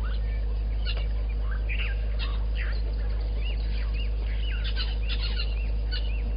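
Several wild birds calling and chirping, with quick runs of short rising-and-falling notes, over a steady low hum.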